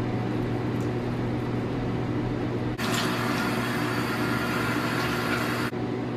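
Bathroom tap running into the sink for about three seconds as a face is rinsed, starting and stopping abruptly. A steady low hum sounds underneath.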